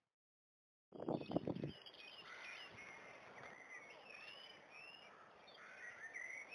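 Birds singing, several short chirping and warbling phrases overlapping, over a soft outdoor hiss. The sound begins about a second in with a brief burst of low rumbling noise.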